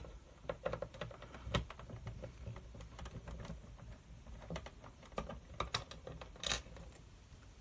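Screwdriver turning screws out of the AlphaSmart Pro's plastic case, with handling of the unit: irregular light clicks and ticks, a few sharper ones about a second and a half in and near the end.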